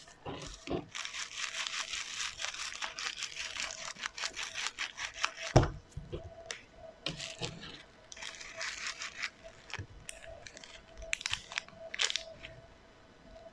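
Hands squishing and stretching slime, with dense crackling and popping clicks. A single louder knock comes about five and a half seconds in, followed by further bursts of crackling.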